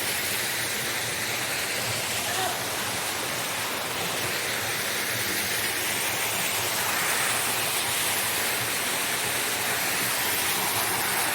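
Steady rushing of a waterfall, the larger upper fall of Taylor Creek, pouring into the pool below it.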